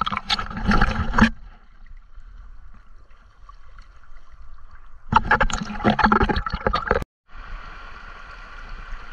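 Water splashing at the surface of a shallow river as caught eels and fish are handled in the water, with the microphone at or under the surface. There are two loud bursts of splashing, in the first second and from about five to seven seconds in; the sound cuts out briefly just after seven seconds, then steady flowing water follows.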